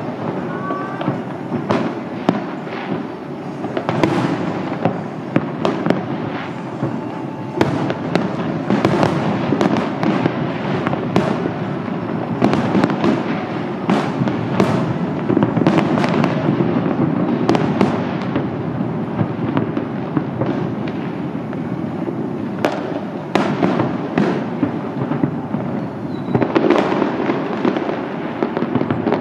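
Aerial fireworks display: a continuous barrage of shell bursts, many sharp bangs over a constant rumble and crackle, heaviest in the middle and again near the end.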